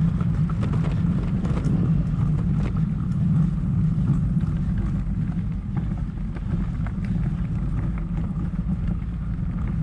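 Steady low rumble of riding noise on a bike-mounted action camera: wind buffeting the microphone and a loaded touring bicycle rolling along, with scattered small clicks and rattles.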